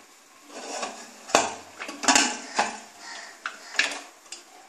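Aluminium pressure cooker lid being fitted and locked shut: several sharp metal clanks and scrapes of the lid against the cooker's rim and handles.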